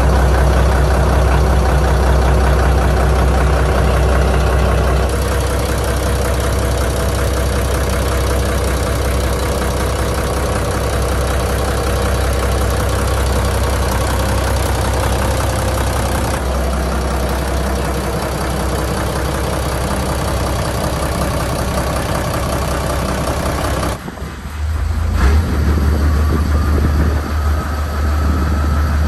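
Yanmar 6PHT six-cylinder turbo marine diesel running steadily, heard close up in the engine room with its accessory belts and pulleys turning. Near the end the engine is heard from the helm instead, with a faint whine slowly rising in pitch.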